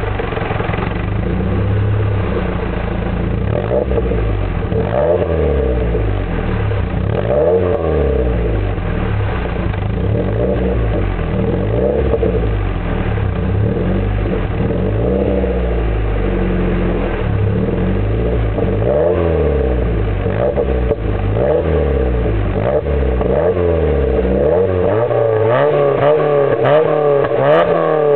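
Mazda MX-5's four-cylinder engine heard through its exhaust, revved again and again in throttle blips, the pitch rising and falling with each blip. In the last few seconds the revs climb higher and swing faster.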